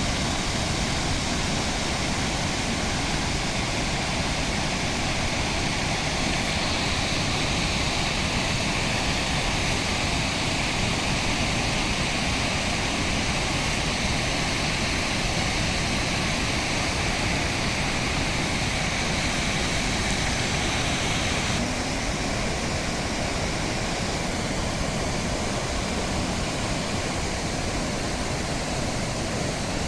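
Fukiware Falls on the Katashina River, water pouring steadily over the rock ledge into the gorge, an unbroken rush of falling water. The higher hiss eases a little about two-thirds of the way through.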